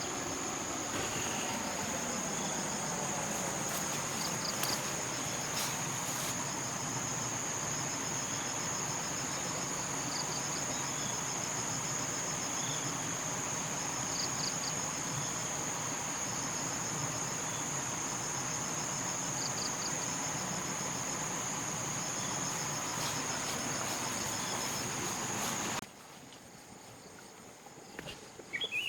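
Forest insects buzzing: a steady high-pitched drone with short pulsed chirps repeating over it. The buzzing cuts off abruptly near the end, and a few faint bird chirps follow.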